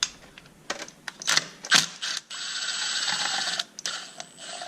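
Ratchet wrench backing out the 8 mm bolts that hold the oil filter housing cover: a few separate clicks and knocks, then a steady run of fast ratchet clicking for over a second, and a shorter run near the end.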